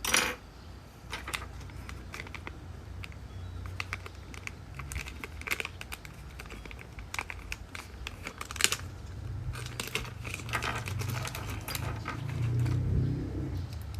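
Irregular plastic clicks and clacks of mechanical keyboard switches being handled and pressed, over a low hum that grows stronger in the second half.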